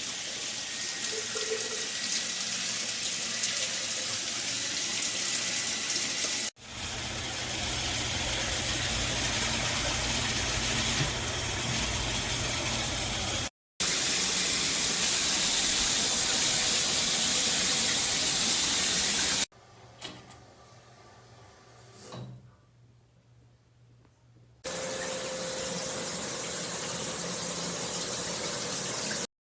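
Water spraying from a BRIGHT SHOWERS rain shower head combo: a steady hiss that stops abruptly and starts again several times. For about five seconds past the middle it drops to quiet, with a couple of faint knocks.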